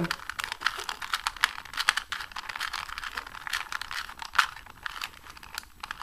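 A 2x2x2 pocket cube's plastic layers being turned in quick succession, making a dense, irregular run of clicks. The turns are the cube-solving algorithm R' F R' B2 R F' R' B2 R2, run through to the last-layer solve.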